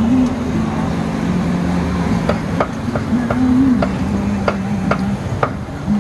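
Metal tongs clicking against the bars of a charcoal grill grate as pork is turned: a run of about ten sharp clicks, roughly three a second, from a couple of seconds in until near the end. Under them runs a steady hum of motorbike and street traffic.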